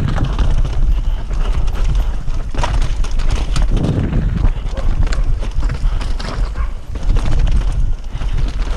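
Mountain bike rattling at speed down a rocky trail, its tyres clattering over stones in a dense run of knocks. A heavy wind rumble on the microphone sits underneath.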